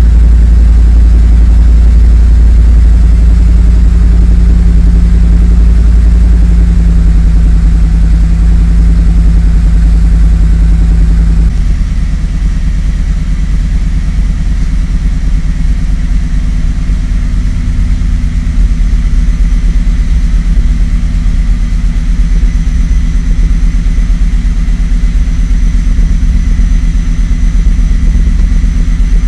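Car engine idling with a rough, uneven idle that the owner is showing as a fault. About a third of the way in, the deep low rumble drops and the engine note shifts.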